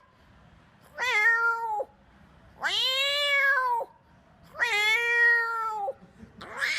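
A man imitating a cat, giving three drawn-out meows, each over a second long, with short pauses between them.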